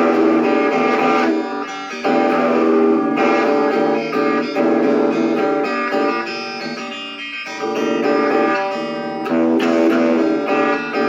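Instrumental guitar music with no singing: guitar chords that change every second or two.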